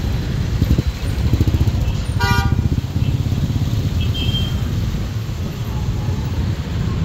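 Street traffic with engines running, and a vehicle horn giving one short honk about two seconds in.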